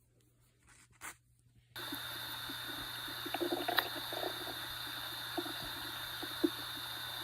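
A Maine coon cat's stomach gurgling in short, faint, irregular bursts: hunger growling. A steady hiss and hum set in abruptly about two seconds in, and the gurgles come over the top of it.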